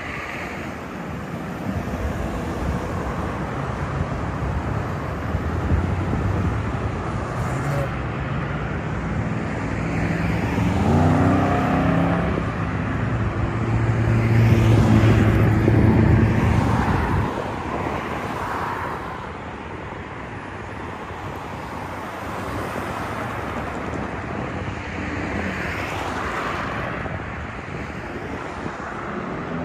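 Street traffic going by. One vehicle's engine rises in pitch and then passes loudest about halfway through.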